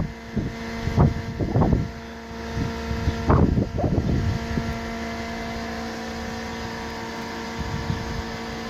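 A motor runs with a steady pitched hum, while gusts of wind buffet the microphone several times in the first half.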